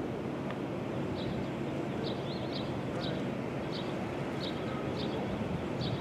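Wind rumbling on the microphone, with a small bird chirping about once or twice a second.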